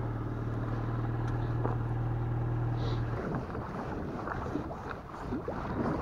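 Classic Lada (Zhiguli) sedan's engine idling with a steady low hum, which cuts off about three seconds in. After that come wind on the microphone and small waves lapping.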